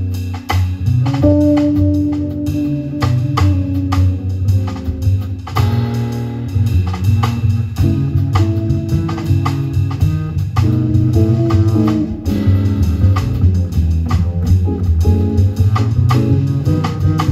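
A live jazz trio playing: guitar over plucked upright double bass, with a drum kit keeping time on cymbals.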